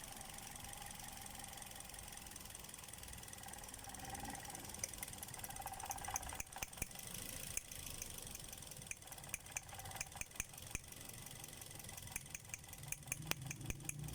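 Toyota Vios four-cylinder engine idling faintly, with the rough idle of a misfire that the owner puts down to defective ignition coils. Over it comes a run of sharp, irregular clicks from about five seconds in, growing denser near the end.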